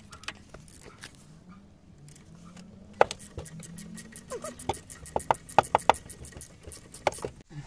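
Ratchet with an Allen-bit socket undoing a brake caliper bolt, its pawl clicking in a quick run of sharp ticks that starts about three seconds in and stops near the end.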